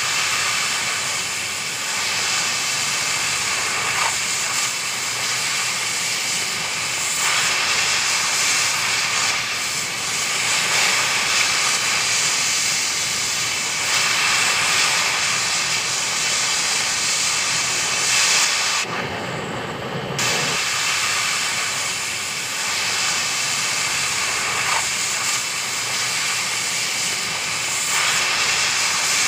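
Oxy-fuel cutting torch hissing steadily as it cuts through steel track-shoe bolts, throwing sparks. The hiss changes briefly, thinner and lower, about two-thirds of the way through.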